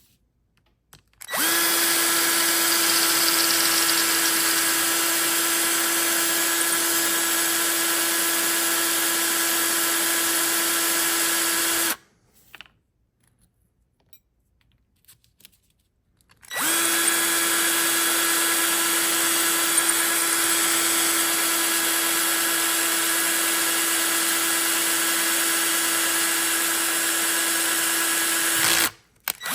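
Power drill running at a steady speed in two long runs of about ten seconds each, with a few seconds' pause between, drilling out the rivets of old pinball stand-up targets.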